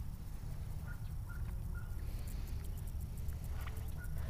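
A steady low rumble, with a few short, faint bird calls: one pair about a second in and another near the end.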